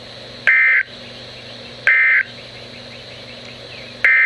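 Emergency Alert System digital data bursts over NOAA Weather Radio: two short, loud, buzzing bursts of warbling two-tone data about a second and a half apart, the end-of-message code closing the warning just read. Near the end a longer burst of the same data begins, the SAME header of the next alert. Faint radio hiss lies between the bursts.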